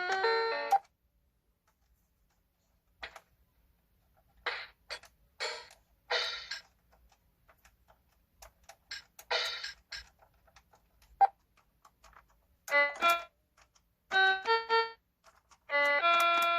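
37-key mini electronic keyboard: a melody stops under a second in, then after a pause come scattered short percussion-like hits, then a few separate held keyboard notes near the end.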